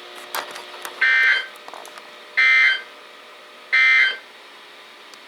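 Three short bursts of Emergency Alert System digital data tones from a NOAA Weather Radio, about 1.3 seconds apart: the end-of-message burst that closes the alert.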